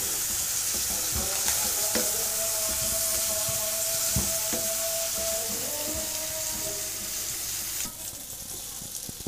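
Sliced onions sizzling in hot oil in a frying pan as they are browned, stirred with a spoon that knocks and scrapes against the pan a few times. The sizzle drops quieter about eight seconds in.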